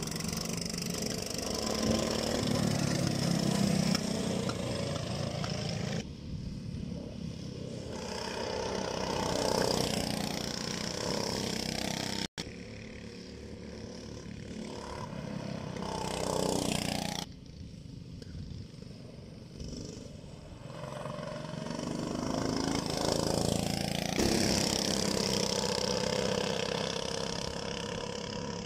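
Go-kart engines running laps, swelling and fading several times as karts approach and pass, the pitch rising and falling with the throttle.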